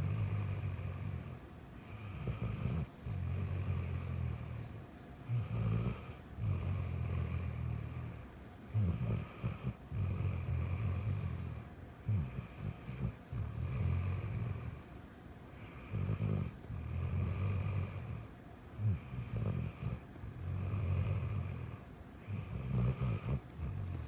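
A sleeping Weimaraner snoring: low rumbling snores repeating every two to three seconds, with short breaths between them.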